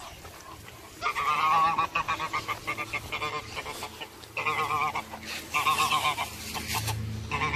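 White domestic geese honking in several bouts of loud, rapid calls, starting about a second in.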